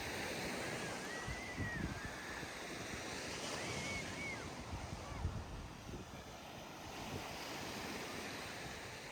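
Gulf surf washing steadily onto the beach, with wind rumbling on the microphone. A few faint, high, arching calls sound over it in the first half.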